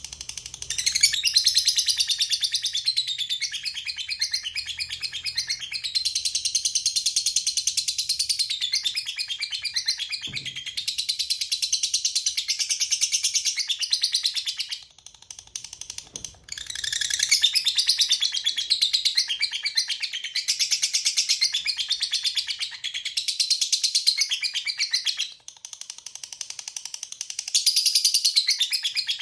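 Lovebird giving its long 'ngekek' chatter: a shrill, rapid run of high chirps kept up in long bouts, with brief breaks about fifteen and twenty-five seconds in.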